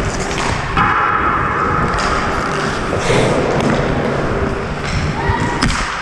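Ice skate blades scraping and carving on the ice, with the knocks of a hockey stick on the puck and a few thuds, heard from a camera worn by the skater. There is a sharp knock near the end.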